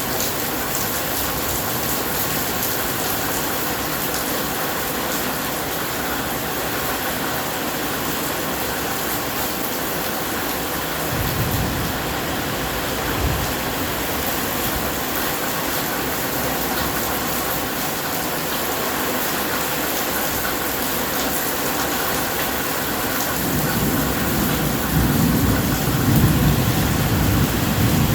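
Steady rain falling, with thunder rumbling: two short low rumbles about 11 and 13 seconds in, then a longer, louder rumble building over the last few seconds.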